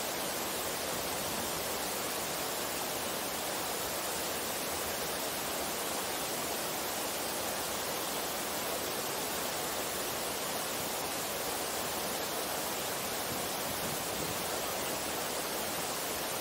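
A waterfall and the mountain stream below it rushing over rocks, a steady, unbroken rush of white water.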